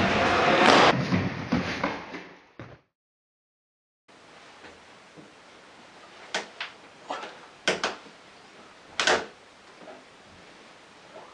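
A loud rushing noise cuts off abruptly and is followed by a second of silence. Then come a series of sharp knocks and thuds as hands grab and slap a wooden ledge board fixed to a cinder-block wall during a fingertip hang and traverse, sped up to double speed.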